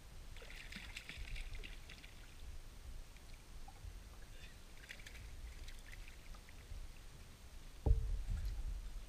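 Water splashing as a small jack is reeled up alongside a kayak, with a few light clicks about five seconds in and a sudden low thump near the end as the fish is swung out of the water.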